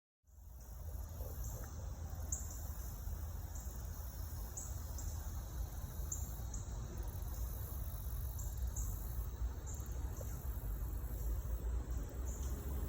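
Insects chirping in a steady high-pitched chorus, with brighter chirps standing out every half second or so over a low rumble. The sound fades in at the start.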